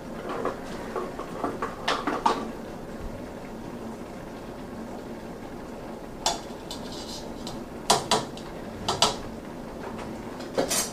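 A spoon clinking and scraping against a stainless-steel pot while macaroni and cheese is stirred, in scattered knocks, and the pot's lid set on near the end.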